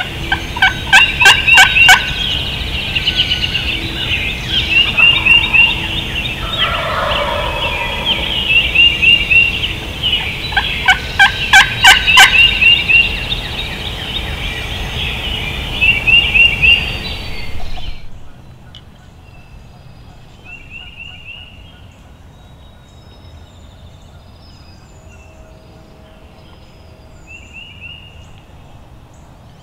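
Wild turkey gobbling over and over, each gobble a short rattling burst. About two-thirds of the way through, the sound drops off suddenly and only fainter gobbles are left.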